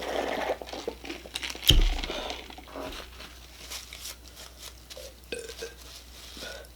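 Taco wrapper paper crinkling, with small crunches and clicks of food being handled, and one sharp, dull thump about two seconds in.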